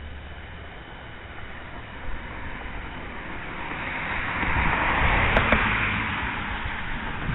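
A vehicle passing by: a rushing road noise that swells to a peak about halfway through and then fades, with a low rumble underneath.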